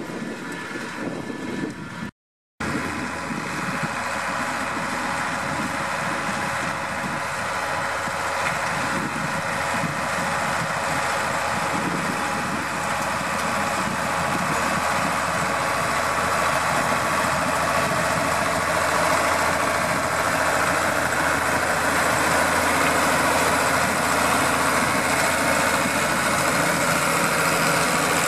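New Holland TS115 tractor's diesel engine running steadily as it pulls a power harrow through cultivated soil. The sound cuts out for about half a second roughly two seconds in, then carries on steadily, growing slightly louder later on.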